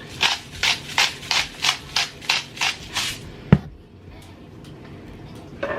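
A spice shaker being shaken over a bowl of chopped chicken: about nine quick, even shakes, roughly three a second. They are followed by one sharp click.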